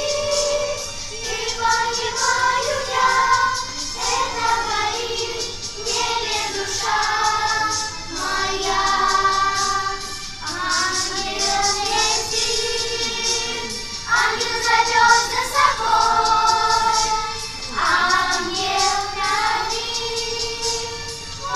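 A choir singing a song in phrases of about two seconds, with short breaks between them.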